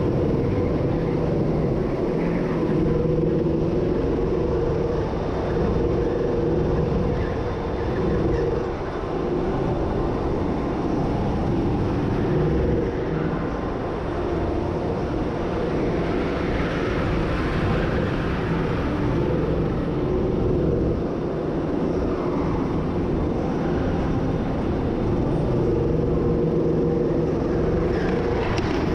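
Go-kart engine running at a steady, moderate speed under safety-kart conditions, its pitch holding fairly even with small rises and dips.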